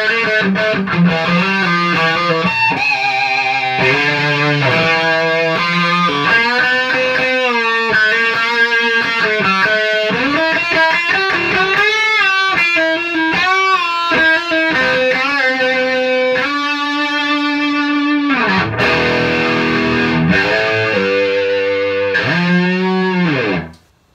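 Electric guitar played through a 1969 Fender Bantam Bass combo amp, its front end pushed by the Line 6 Helix's OCD overdrive model with both channels jumped, giving a crunchy distorted tone. A lead line of sustained, bent notes cuts off suddenly near the end.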